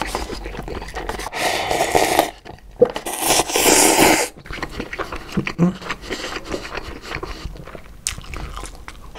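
Instant cup ramyeon noodles slurped straight from the cup: two long, noisy slurps about a second and a half and three seconds in, then softer mouth sounds of chewing.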